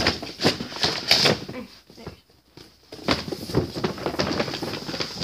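Cardboard boxes rustling, scraping and knocking as a tall doll box is pulled out of a larger shipping box, with a short lull about two seconds in.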